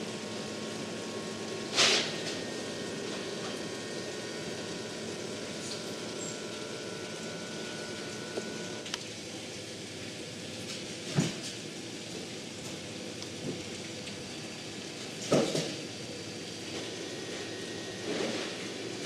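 Knife and tuna being handled on a plastic cutting board while sashimi is sliced and plated: a few separate knocks and taps, the loudest about 2, 11 and 15 seconds in, over a steady background hiss with a faint hum.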